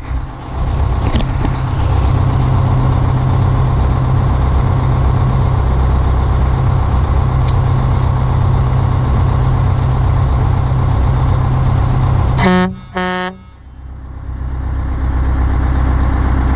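A Detroit Diesel 8V92 two-stroke V8 in a 1985 Peterbilt idling steadily, heard from on the hood. About twelve seconds in, the truck's air horn gives two short blasts. The engine sound then drops away for a moment and builds back up.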